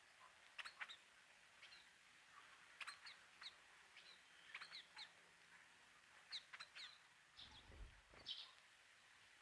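Birds chirping at a feeder: many short, high chirps scattered irregularly, fairly faint. There is a brief low rumble about three quarters of the way through.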